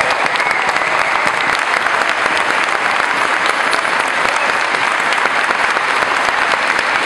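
A large audience applauding: many hands clapping in a dense, steady stream.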